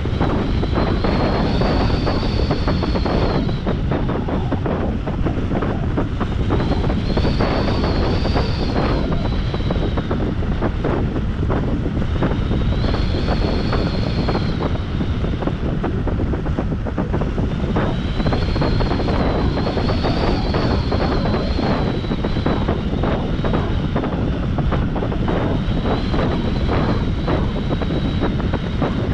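Wind rushing over the microphone of a paraglider in flight, steady throughout. A high tone swells and fades again and again, every few seconds.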